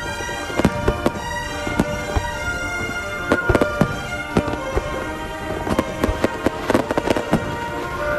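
Fireworks bursting in rapid, irregular succession, sharp cracks and bangs, many of them close together, over music with long held notes.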